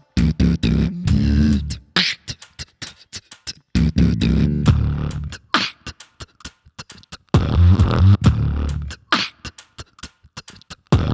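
Beatboxing: rapid sharp click, hi-hat and snare sounds, broken every few seconds by a second or two of deep bass notes.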